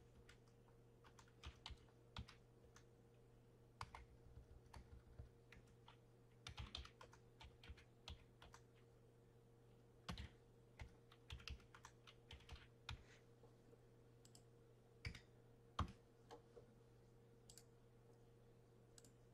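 Faint, irregular computer keyboard typing and clicks, as team names are entered into a randomizer, over a faint steady electrical hum.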